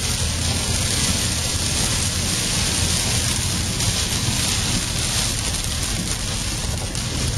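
Steady rain hitting a moving 4x4, over the even low rumble of its engine and tyres.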